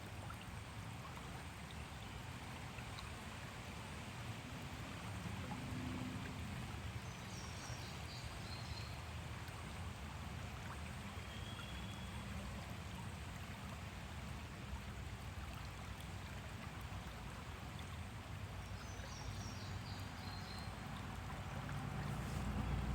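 Water flowing steadily with a low rumble underneath, and faint short bird chirps about seven seconds in and again near twenty seconds.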